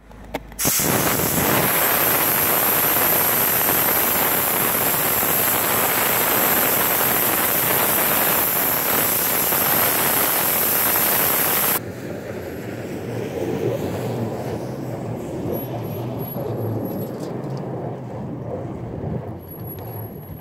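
Compressed air hissing steadily out of a Simex Jungle Trekker mud-terrain tyre through a valve-stem deflator with a pressure gauge, letting the tyre down for better grip on snow. The hiss cuts off about 12 seconds in, and a Hummer H3's engine is heard running as it climbs a snowy slope, with wind noise on the microphone.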